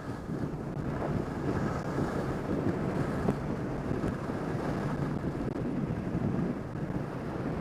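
Strong mountain wind buffeting the microphone: a steady, rumbling rush of noise with no letup.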